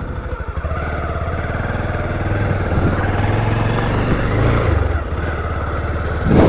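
Motorcycle engine running under way on a rough off-road track, its pitch rising a little in the middle and easing back after about four and a half seconds. A short, louder sound near the end.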